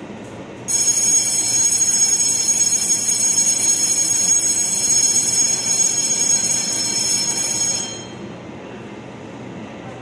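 Electric station departure bell ringing steadily, with a bright high-pitched ring. It starts just under a second in and cuts off suddenly after about seven seconds, over a low background rumble.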